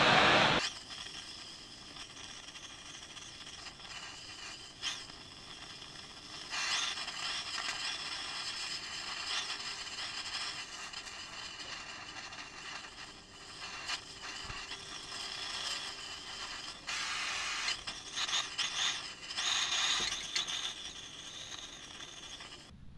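Oxy-acetylene torch flame hissing while a ring is brazed onto a steel pipe with filler rod. A loud rush in the first second drops to a steady hiss that swells louder for stretches.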